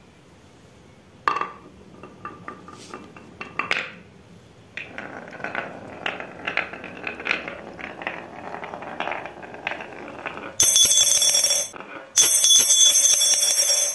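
Marbles clicking and rattling as they roll down a marble run track, starting with a sharp click about a second in and becoming a continuous clatter. Near the end a much louder, bright bell-like ringing sets in, breaks off briefly, then starts again.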